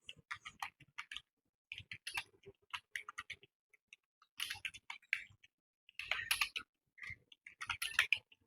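Typing on a computer keyboard: quick runs of keystrokes in bursts, with a short pause a little before halfway.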